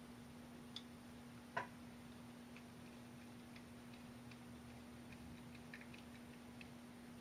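Faint, sparse clicks and ticks of a small screwdriver and metal parts being handled as screws are driven into a mini lathe's cross slide base, over a steady hum. One click about a second and a half in is a little louder than the rest.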